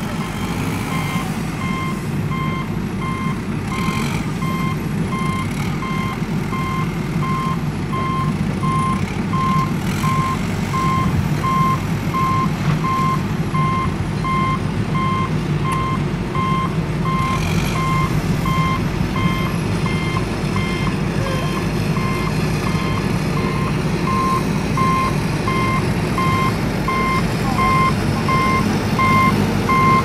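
Vehicle reversing alarm beeping at an even pace over a steady low engine rumble, as of a truck backing up.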